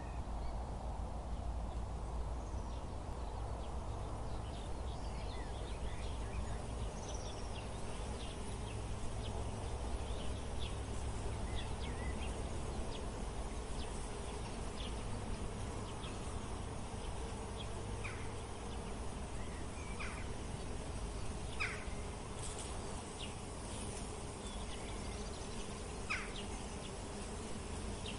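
Insects buzzing over a steady low hum, with scattered short, high chirps throughout.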